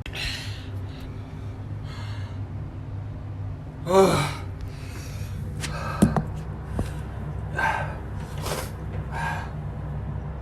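A man's heavy breathing: several audible breaths and gasps, with one voiced, falling exhale about four seconds in, over a steady low hum. A single sharp click comes about six seconds in.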